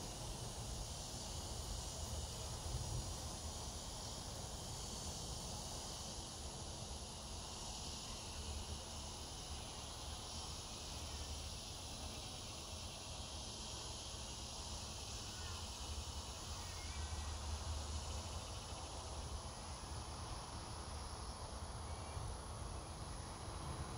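A steady chorus of summer insects, an even high hiss, over a low rumble.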